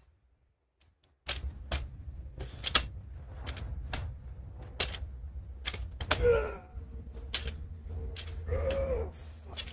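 Metal hand truck loaded with a heavy log, rattling and knocking as it is tipped back and rocked, starting about a second in, over a low rumble. A man grunts with the effort twice, around the middle and near the end.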